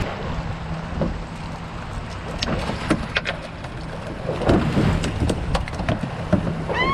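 Wind and water noise around a small boat with a low steady hum, broken by several sharp knocks through the middle and toward the end as a hooked Spanish mackerel is swung aboard and flops on the deck.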